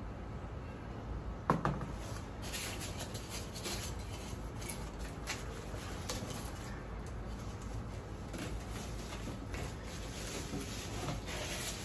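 Cardboard box inserts and plastic wrapping being handled and pulled apart, with scattered rustles and clicks and one sharp knock about a second and a half in.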